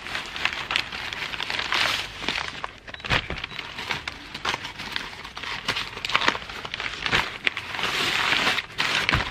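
Plastic and brown-paper parcel wrapping rustling and crinkling as hands pull it open, in irregular handling noises with sharp crackles, denser and louder near the end.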